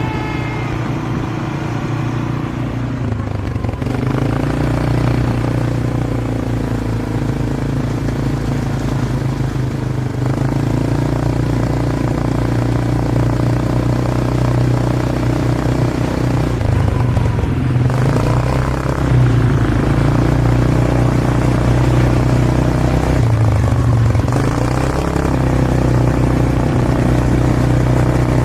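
A motor vehicle's engine running while driving, its pitch shifting a few times as the speed changes, over steady road noise.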